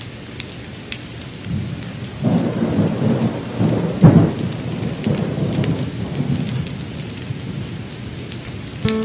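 Rolling thunder with rain, swelling to a peak about four seconds in and slowly dying away, with scattered sharp ticks. A musical note comes in at the very end.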